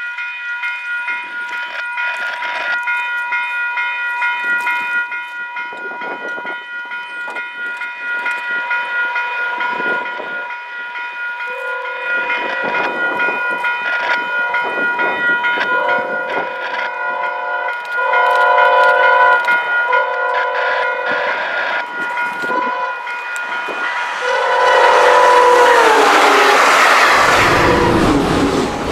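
Level crossing warning bell ringing steadily as a VIA Rail passenger train led by a Siemens Charger locomotive approaches sounding its horn for the crossing: two long blasts, a short one and a final long one that drops in pitch as the locomotive passes. The train then rushes by loudly near the end, with wheel and rail noise.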